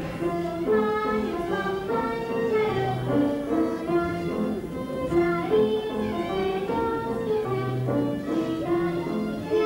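A song from a children's stage musical: a melody of short held notes moving in steps over instrumental accompaniment, with children singing.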